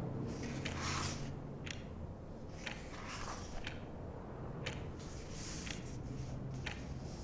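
Composed bookshop room ambience: a clock ticking about once a second over a low, steady hum of distant street traffic, with soft rustling and handling sounds of someone pottering about.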